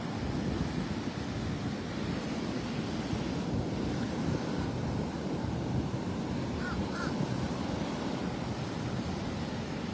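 Rough surf breaking and washing up the beach, with wind buffeting the microphone. A few short bird calls about seven seconds in.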